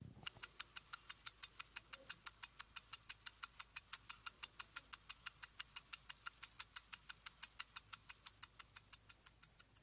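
Mechanical pocket watch ticking: its balance and escapement beat evenly at about five ticks a second, fading out near the end.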